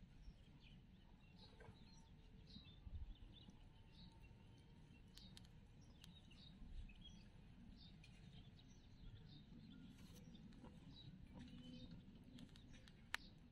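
Near silence: faint outdoor ambience with a low rumble and scattered short, high bird chirps, and one sharp click near the end.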